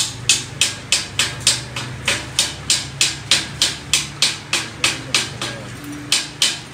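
Rapid, regular hammer blows on metal, about three a second, with a short pause near the end, over a low steady hum.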